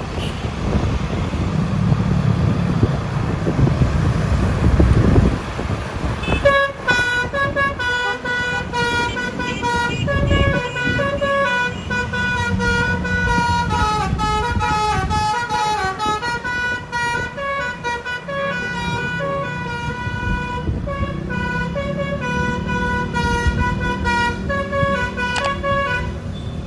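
A bus's 'telolet basuri' multi-tone musical air horn playing a long melody, its notes stepping up and down, starting about six seconds in. Before it, only a low rumble of wind and road noise.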